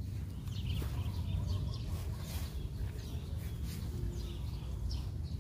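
Quiet background: a low, steady rumble with faint, scattered bird chirps and no speech.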